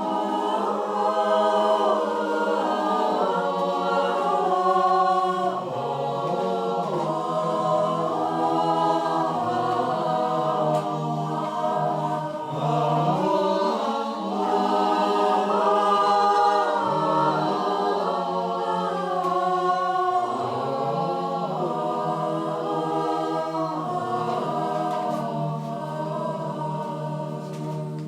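A choir singing in several-part harmony without words the recogniser could catch, over a held low note; the singing breaks off at the very end.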